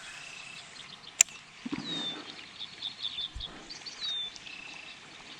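Birds calling: short chirps that sweep downward, repeated a few times, with brief high notes between them. There is a single sharp click about a second in.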